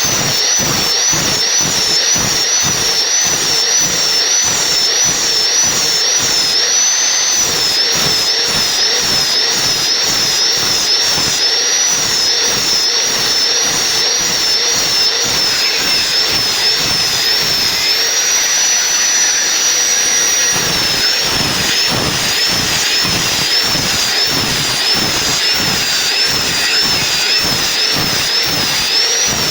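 Large-blade sawmill saw cutting through a log: a loud, steady machine noise with a high whine that wavers up and down rhythmically, holding level for a couple of seconds past the middle.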